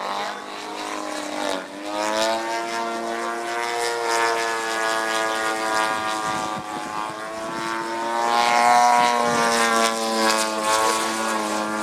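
Propeller airplane engine droning overhead as the plane manoeuvres. Its pitch dips and rises as it passes, and it is loudest a little after the middle.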